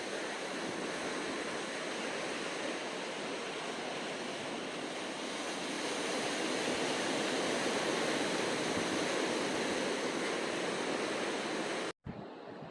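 Sea surf washing steadily, swelling a little about halfway through, with a sudden momentary dropout near the end.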